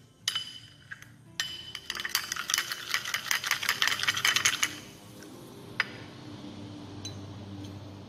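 A metal spoon stirring a paste of ground cowrie shell and apple cider vinegar in a small ceramic dish. A few single clinks come first. From about a second and a half in until nearly five seconds, there is a fast run of scraping and clinking against the dish. It then goes quieter, with one more clink.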